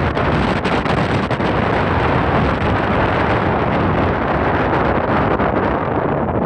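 Wind buffeting the microphone: a steady, loud rushing rumble that flickers unevenly.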